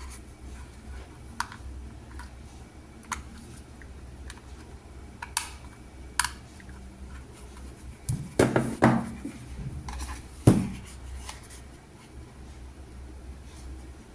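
Handling noise of a micro USB cable being plugged into a camcorder battery charger: scattered small plastic clicks and knocks, with a cluster of louder knocks about eight seconds in and the loudest a couple of seconds later.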